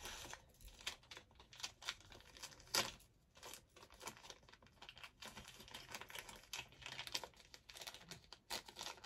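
Thin white paper wrapping crinkling and rustling in the hands as it is unfolded and pulled apart to unwrap a small jewellery item, faint, with an irregular run of crackles and one louder crackle about three seconds in.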